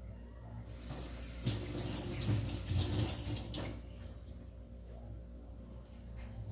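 Water running from a kitchen tap into a sink for about three seconds, then stopping.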